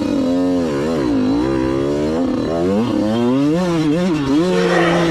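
Two-stroke TM Racing 100 minibike engine revving up and down over and over as the throttle is worked during an attempt at a steep hill climb.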